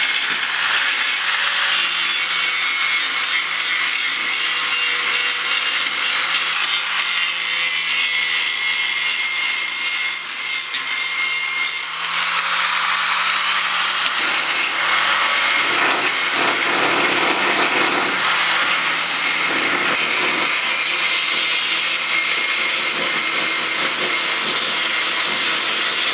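Angle grinder with a grinding wheel grinding old welds off the steel frame rail and impact bar, a steady grinding hiss.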